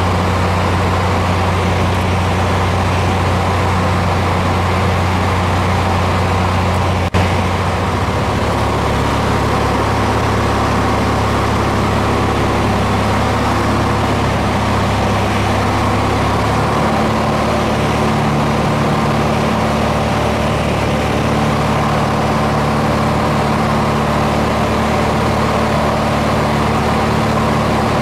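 Steady, loud engine drone of the aircraft filming from the air, a deep hum whose pitch shifts slightly twice. A single sharp click about seven seconds in.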